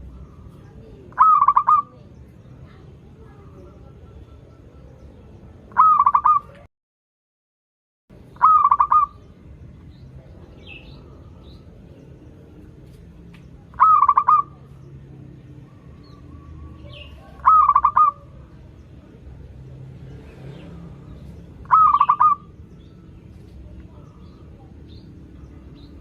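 Zebra dove (perkutut) cooing: six short rolling coos, each about half a second long, repeated every three to five seconds over a low steady background hum. The sound drops out completely for about a second and a half after the second coo.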